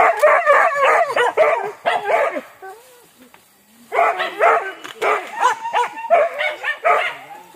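Several hunting dogs barking in quick, overlapping calls, in two spells: one at the start lasting about two and a half seconds, and another from about four seconds in.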